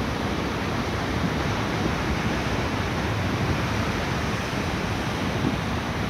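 Sea surf breaking and washing over a rocky shore: a steady rush of waves and churning foam.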